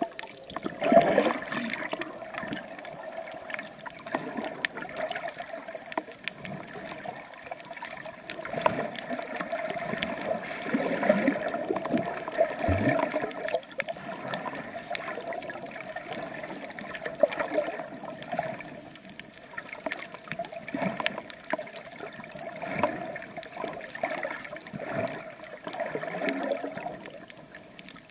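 Seawater sloshing and gurgling around a camera held in the water while swimming, swelling and fading irregularly.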